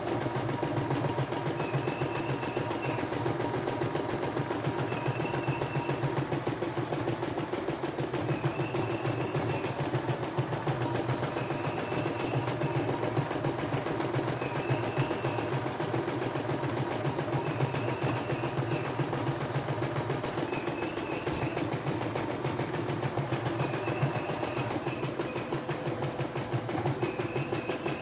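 CNY E960 embroidery machine stitching a design: a steady, rapid needle clatter over the running motor, with a short high whine recurring every two to three seconds.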